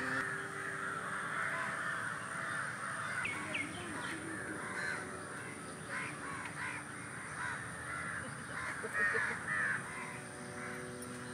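Birds calling continuously, many at once, their calls overlapping.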